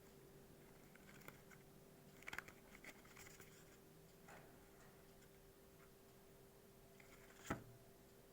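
Faint handling sounds of a cough-syrup box and bottle being unpacked: a few small clicks and rustles about two to three seconds in, and one sharper click near the end, over a low steady hum.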